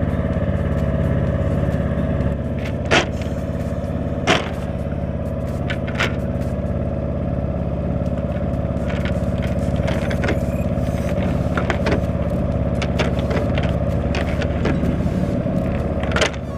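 An engine running steadily at an even speed, with occasional sharp knocks and clatter over it.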